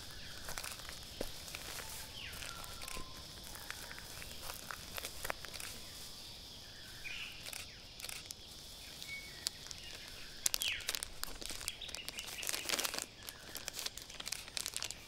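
Plastic barrier tape crinkling and rustling as it is handled around a tree trunk, in a burst of sharp crackles from about ten to thirteen seconds in. Under it is a quiet woodland background with a steady high hiss and a few short bird chirps.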